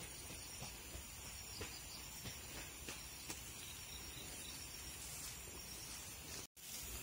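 Steady high-pitched insect chirring, several thin tones held without a break, with faint scattered ticks and rustles. The sound drops out for an instant near the end.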